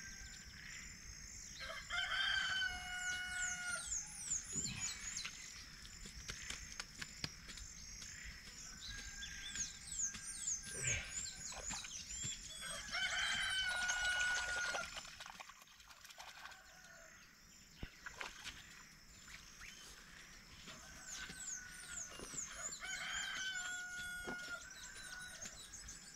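A rooster crowing about four times, each crow a long held call, over a steady high drone.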